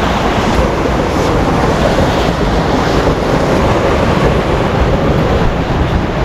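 Steady, loud rushing of water through a narrow rock canyon, with wind noise on the microphone.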